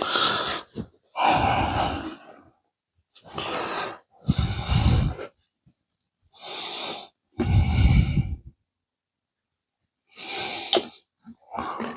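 A person breathing close to the microphone in slow, even in-and-out breaths while concentrating on fiddly work. Near the end there is a single sharp click.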